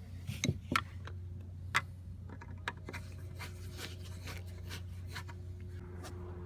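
Scattered sharp clicks and taps with some rubbing as the plastic tail light assembly is handled and fitted back into place, over a steady low hum.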